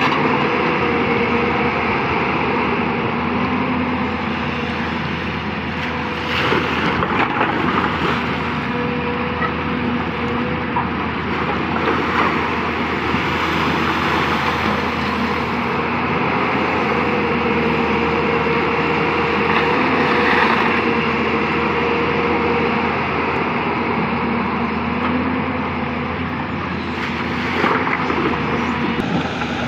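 Hyundai 220-9S excavator's diesel engine running steadily under hydraulic load while it works, with a couple of brief louder surges.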